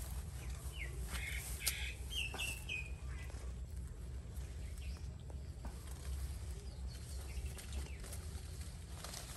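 A few short, high chirping calls in quick succession between about one and three seconds in, with a sharp click among them, over a steady low rumble.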